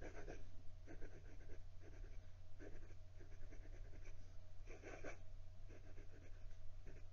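Moonman M1000 fountain pen's extra-fine German steel Bock nib writing cursive on lined notebook paper: a run of short, irregular pen strokes, the loudest about five seconds in.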